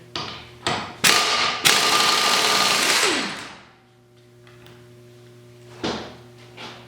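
A handheld power tool, brought in to undo a fastener the torque wrench shouldn't be used on, runs loudly for about two seconds with a rapid mechanical rattle, then spins down with a falling pitch. Several sharp clicks come just before it, and one more comes near the end.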